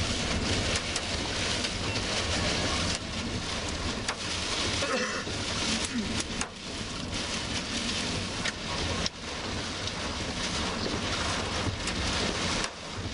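Heavy rain hitting a car's windshield, with road noise, heard from inside the moving car: a loud steady hiss that dips briefly a few times.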